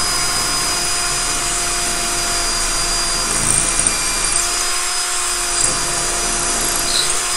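DeWalt 18V cordless drill boring a 5mm hole into a concrete block wall, its motor running at a steady speed and the bit grinding into the masonry.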